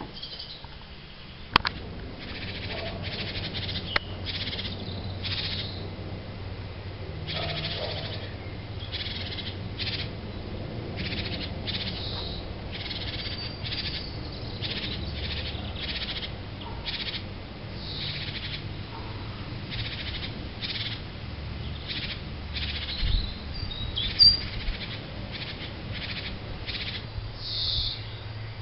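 Great tits calling over and over, short high calls repeated many times, with a sharp click about a second and a half in.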